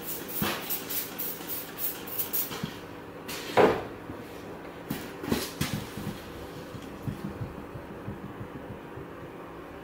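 Handling noises: a run of light knocks and clatters, then a louder clunk about three and a half seconds in and a few more knocks after it, over a low steady background.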